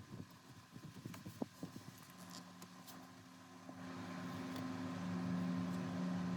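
A few light clicks and knocks, then about two seconds in a machine's motor starts and runs with a steady low hum and a hiss. The hum gets louder about four seconds in.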